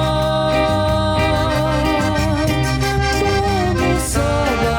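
Cumbia band playing live with a woman singing, holding a long wavering note over a steady bass and beat before the next sung line begins near the end.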